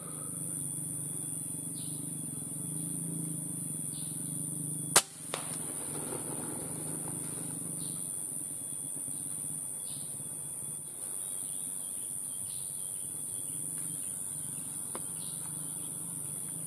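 A single sharp crack of a PCP air rifle shot about five seconds in, with a fainter crack just after. Behind it, insects keep up a steady high-pitched drone.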